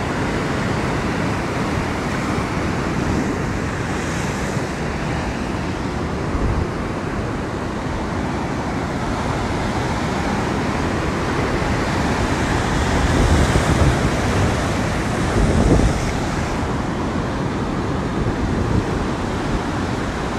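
Ocean surf breaking onto a rocky shore in a continuous rushing wash, with wind buffeting the microphone. The wash swells louder twice, a little past the middle and again about three-quarters through.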